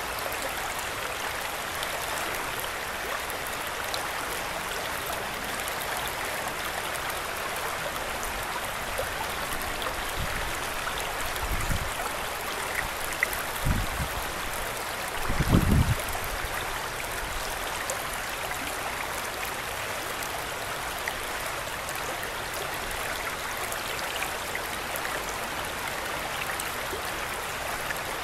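Shallow creek water rushing and babbling steadily over rocks in a riffle. About halfway through come a few short low thumps, the last one the loudest.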